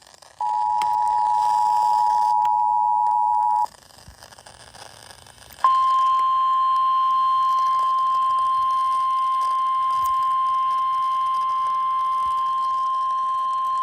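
Emergency Alert System two-tone attention signal sounding steadily for about three seconds. After a two-second gap it is followed by the single-pitch weather radio warning alarm tone (1050 Hz), held steady for the rest.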